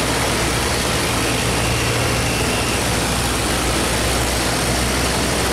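Boat diesel engines running with a steady low drone, over the rush of churned water from many boats crowding through a sluice gate.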